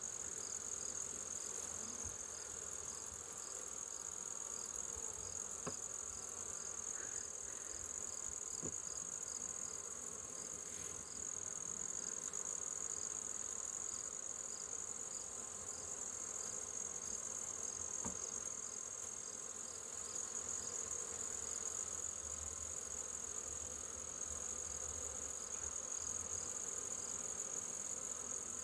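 Honey bees buzzing steadily around an open hive, over a constant high-pitched insect trill with a faint regular chirp.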